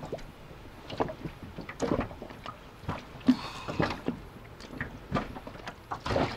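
Small waves lapping and slapping against the hull of an inflatable dinghy at anchor, in irregular short splashes about once a second, with a louder slap near the end.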